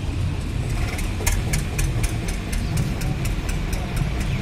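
An engine idling with a steady low rumble, and a regular sharp ticking about four times a second that sets in about a second in.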